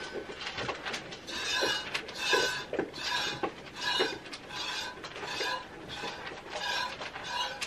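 Goat being hand-milked: squirts of milk hitting a small metal bowl in a steady rhythm, about two squirts a second. The doe is near the end of her lactation and giving little milk.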